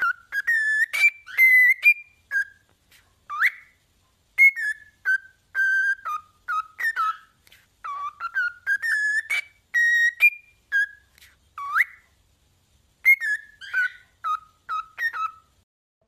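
A parrot whistling a run of short notes, some held level and a few sliding sharply upward, in phrases broken by brief pauses and one longer pause about three-quarters of the way through.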